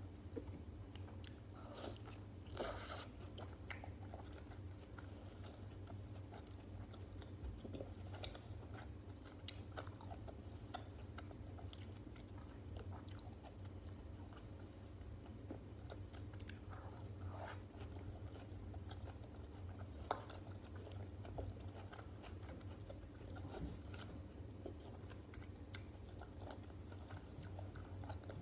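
Close-miked chewing and biting of stuffed cabbage rolls, with irregular soft clicks and crunches of mouth and food sounds over a steady low hum.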